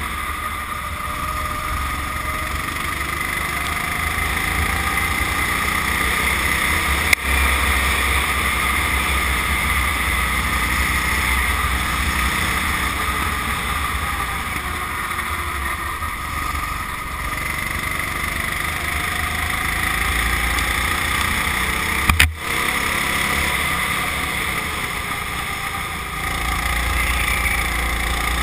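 Go-kart engine heard from on board while driving laps, its pitch rising and falling with the throttle through the corners. Two sharp knocks cut through it, about seven seconds in and again around twenty-two seconds in.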